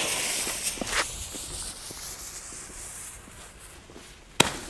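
Lit fuse of a firework cake hissing and sputtering, loudest at first and fading over a few seconds, with light footsteps. Near the end the first tube fires with one sharp bang.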